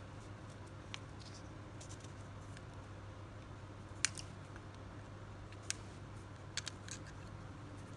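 Sparse small metallic clicks and taps of pliers handling steel fishing hooks on a hand-tied touch-fishing rig: one sharp click about halfway through, another a little later and a quick cluster near the end, over a low steady hum.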